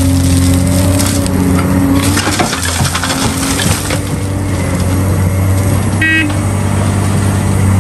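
Large hydraulic mining excavator's diesel engine running steadily while its bucket dumps dirt and rock into a dump truck bed, the load crashing and rattling into the steel body. A short high beep sounds about six seconds in.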